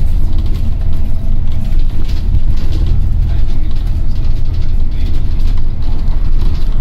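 Steady low rumble of a moving bus heard from inside, engine and road noise with light rattling of the body.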